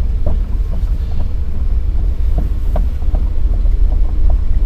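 Kobelco SK210 excavator's diesel engine running, a steady low rumble mixed with wind buffeting the microphone, with a few light clicks scattered through.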